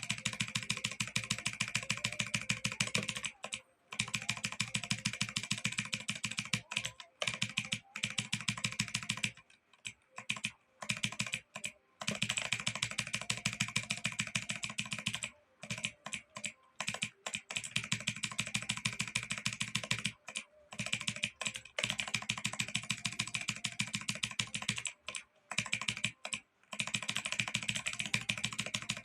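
Computer keyboard being typed on in fast, continuous runs of keystrokes, broken every few seconds by short pauses.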